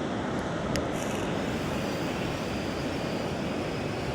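Steady roar of wind and sea surf on an exposed seafront, with a single faint click about three-quarters of a second in.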